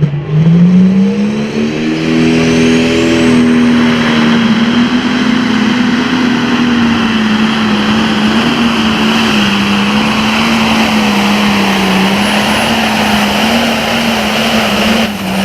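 Super Farm pulling tractor's turbocharged diesel engine at full throttle under load during a pull. It revs up sharply in the first second, then holds a high, nearly steady pitch for the rest of the run.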